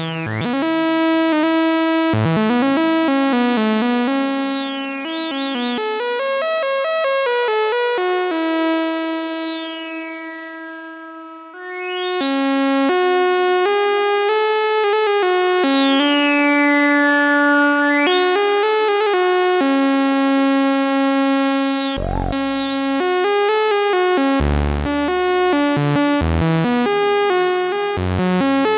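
Musonics Vanilla 5U analogue modular synthesizer played from a keyboard: held notes whose bright upper tones sweep open and shut over and over. The sound fades away around eleven seconds in and comes back with a new note a moment later, and low bass notes join near the end.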